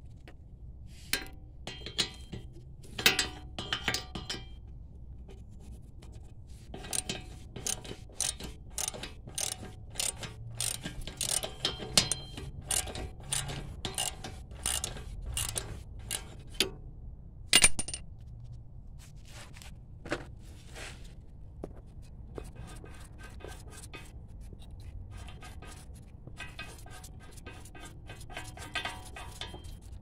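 Hand ratchet clicking in repeated bursts as a socket turns bolts on a car's front steering knuckle, with one sharper metal clank a little past halfway.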